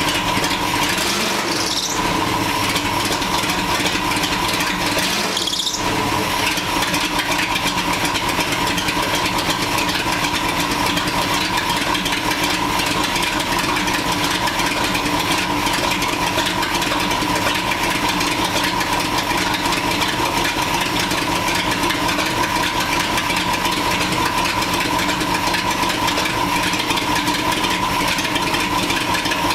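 A freshly built 350 (5.7 L) small-block V8 in a 1988 Chevy K5 Blazer runs steadily at idle on its first run. A steady high whine sits over the engine note, and there are two brief high rising sounds a couple of seconds and about six seconds in.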